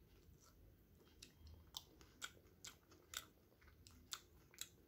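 A person chewing a steamed chicken momo close to the microphone: faint, wet mouth clicks about twice a second.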